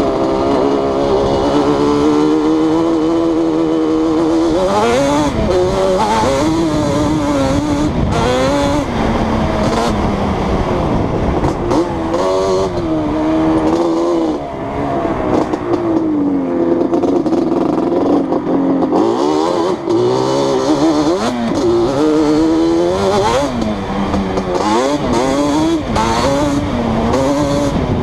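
Yamaha Banshee's 350 cc twin-cylinder two-stroke engine, breathing through Keihin 28 mm carbs and Toomey T5-style drag pipes, ridden hard on the throttle. The revs climb and drop again and again through the gears, with a brief steadier, lower stretch around the middle.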